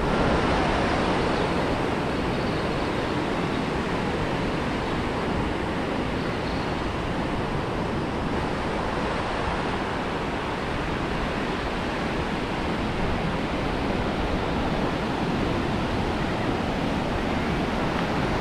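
Ocean surf breaking and washing up the beach: a steady rushing noise.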